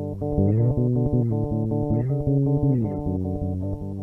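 Background music: plucked guitar with a bass guitar playing a moving bass line.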